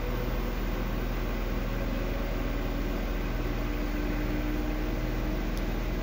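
LG Direct Drive 12/7 kg front-load washer-dryer running in a diagnostic test, giving a steady mechanical hum with a faint steady tone.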